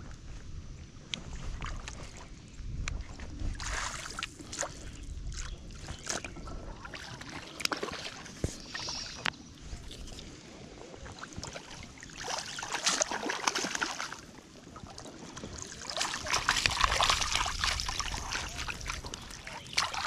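Hooked fish thrashing and splashing in shallow river water as it is played in and netted, with water sloshing and scattered sharp clicks. There are several louder bursts of splashing, about 4 seconds in, from about 12 to 14 seconds, and the loudest near the end.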